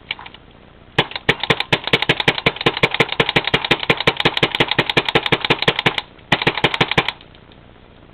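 WGP 2004 Autococker paintball marker firing rapidly, a fast even string of sharp pops lasting about five seconds, then after a short pause a second burst of under a second.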